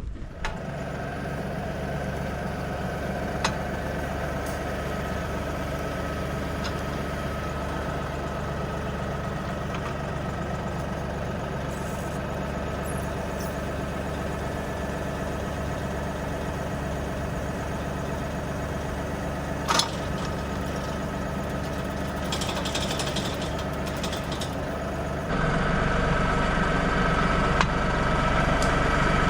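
LS XG3140H compact tractor's diesel engine running steadily, with a step up in loudness about four seconds before the end. Two short sharp clicks sound over it, one early and one about two-thirds through.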